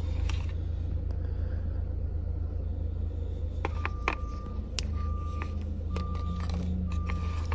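Steady low rumble. A few light clicks and taps of the phone box and packaging being handled come about three to four seconds in, and a faint beep repeats about once a second through the second half.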